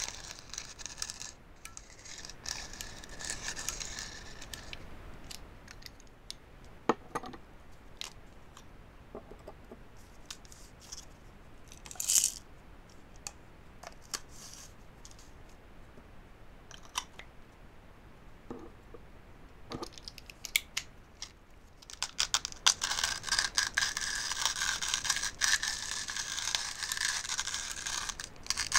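A coffee grinder crushing beans: a gritty grinding stretch at the start, scattered clicks and knocks through the middle, then a longer, louder run of grinding over the last several seconds.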